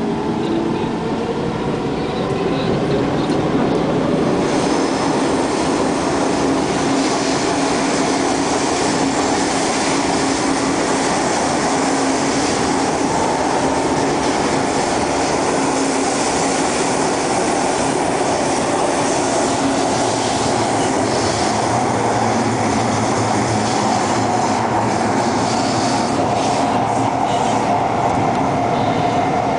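Inside a carriage of an SMRT C151 metro train running through an underground tunnel: a steady, loud rumble of wheels on rail with a held hum of tones from the running gear.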